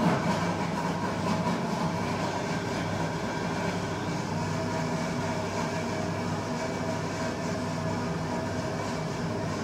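Laptop keyboard typing under a steady machine hum with several held tones, which sets in suddenly right at the start.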